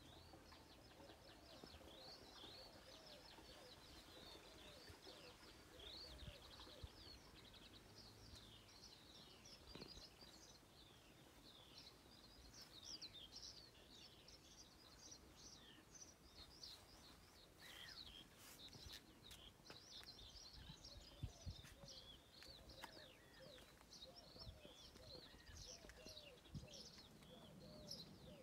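Faint birdsong: many short, high chirps and trills from small birds, overlapping without a break. A few soft, low thumps come about two-thirds of the way through.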